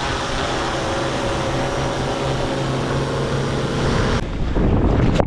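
Swellpro FD2 fishing drone's propellers running with a steady, even hum. About four seconds in, the hum gives way suddenly to a rougher, lower rushing noise.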